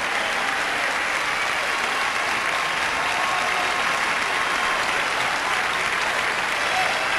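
Audience applauding steadily after a song, a dense, even clapping.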